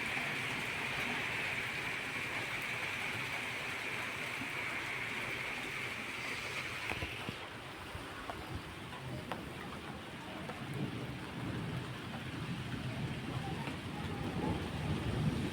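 Steady rain falling, with a bright hiss that cuts off about halfway through, leaving a lower rumble that grows toward the end.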